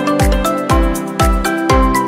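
Background music with a steady kick-drum beat about twice a second under held melodic notes.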